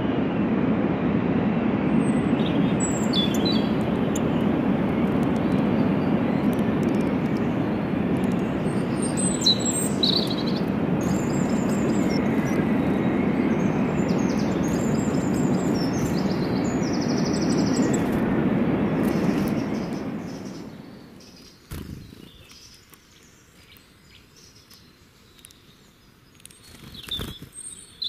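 Birds chirping over a steady low city rumble. The rumble fades out about two-thirds of the way through, leaving a quiet stretch with a few faint clicks and another chirp near the end.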